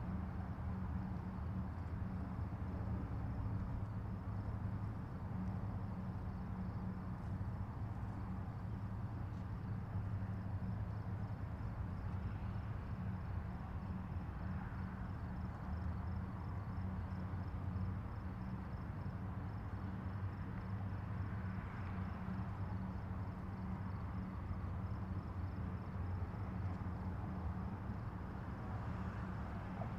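Steady low drone of tugboat diesel engines working across the water as they tow a cargo ship, with a faint rapid high-pitched chirring above it.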